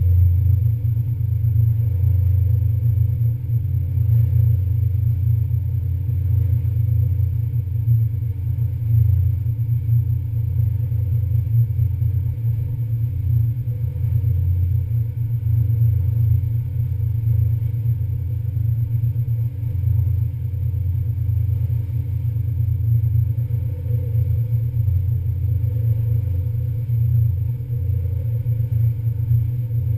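Steady low rumble of a Hudson River commuter ferry's diesel engines under way, unbroken and unchanging, with a few faint steady tones above it.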